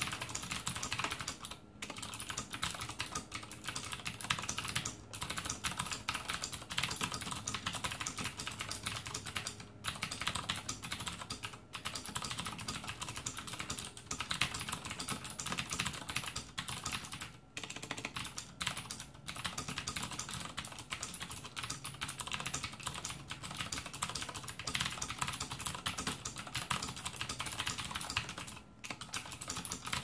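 Fast, continuous typing on a mechanical keyboard with clicky switches, a dense stream of key clicks broken by a few short pauses.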